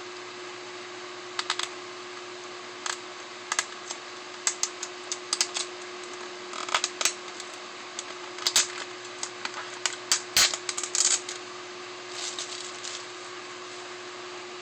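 Fingernails picking at and peeling the clear security sticker off the edge of a plastic Blu-ray case, with irregular plastic clicks and crackles, the loudest a little past the middle. A steady low hum runs underneath.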